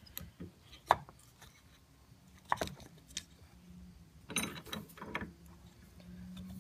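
Scattered sharp clicks and knocks of a bench vise being readjusted around a knife blade, about four separate bursts. A faint steady low hum starts about two seconds in.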